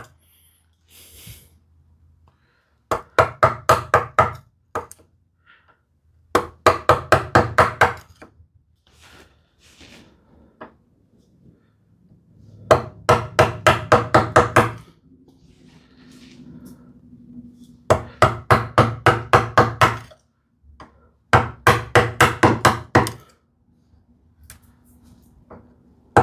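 Half-inch wood chisel struck with quick, light taps, chopping a little at a time into the wood for a curved groove. The taps come in five runs of about eight strikes each.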